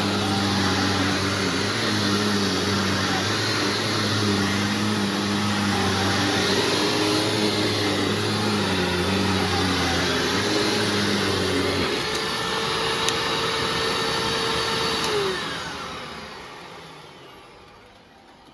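Hoover Self Propelled WindTunnel Ultra U6430 upright vacuum running steadily after its brushroll replacement. A lower drone drops out about twelve seconds in. Near the end the machine is switched off and the motor winds down with a falling whine.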